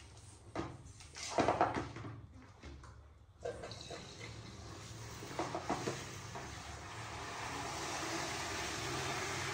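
Water from a handheld shower head running into a plastic basin. It starts about three and a half seconds in and builds to a steady hiss. Before it come a few short knocks, the loudest about a second and a half in.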